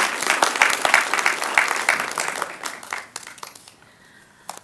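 An audience applauding, the clapping thinning out and dying away about three seconds in, with a single knock near the end.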